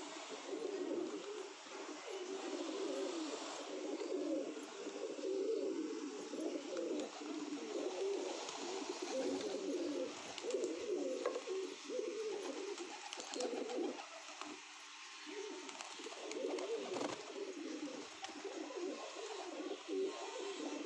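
A flock of domestic pigeons cooing continuously, many low warbling coos overlapping one another.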